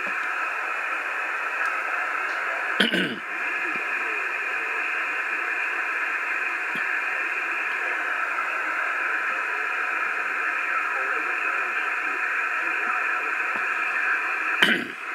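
Steady static hiss from a Cobra 2000 GTL Supersnake CB radio's receiver on lower sideband at 27.415 MHz, with the band faded. It is broken by two brief louder bursts, about three seconds in and near the end.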